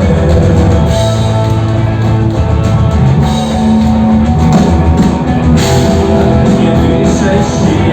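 Live rock music: a band playing with drum kit and electric guitar, loud and steady.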